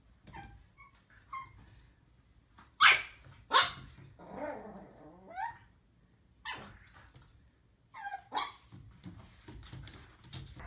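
Young puppy giving a string of short, high-pitched barks at its own reflection in a mirror, about ten in all, the two loudest close together about three seconds in.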